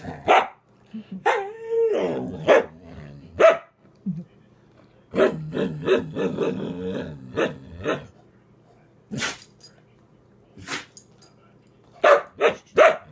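Samoyed barking and grumbling, with a wavering rise-and-fall call early on and a quick run of about four short, sharp barks near the end.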